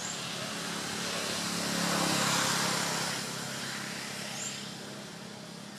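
A motor vehicle passing by, its noise rising to a peak about two seconds in and then fading away.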